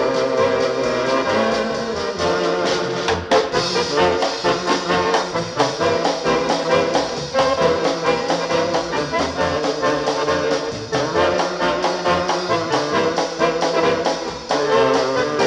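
Polka band recording in an instrumental passage, with brass horns carrying the tune over a steady bouncing beat.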